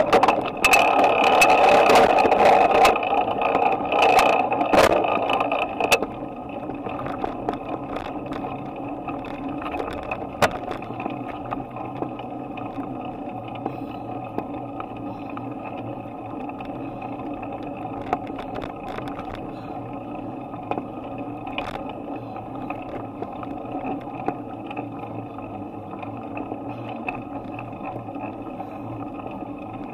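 Bicycle riding noise picked up by a handlebar-mounted camera: tyre rumble with knocks and rattles from the bike. It is louder and bumpier for about the first six seconds, then settles to a steadier, quieter hum with an occasional tick.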